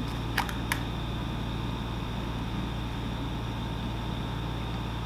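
Two small clicks as the plastic cap is twisted off a small drink bottle, over a steady low hum.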